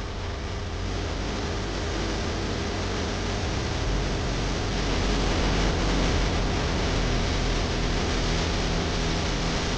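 Steady, dense rushing noise with a deep rumble, growing slightly louder about four seconds in.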